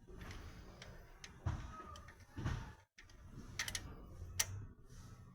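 A few light, scattered metallic clicks and taps as a valve-train rocker arm is worked by hand back into place on a car engine's cylinder head, over a faint low hum.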